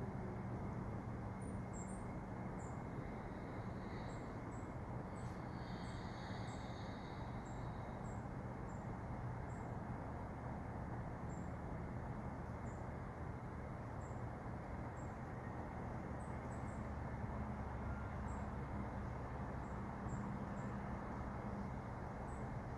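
Outdoor background ambience: a steady low rumble with faint, short, high chirps about once a second.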